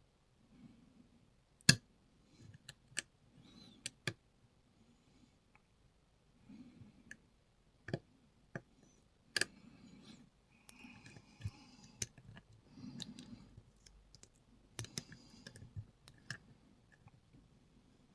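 Lock pick and tension wrench working the pins of a Lockwood 334B45 brass padlock: irregular sharp clicks, the loudest about two seconds in, with soft scraping between them as pins are lifted and set.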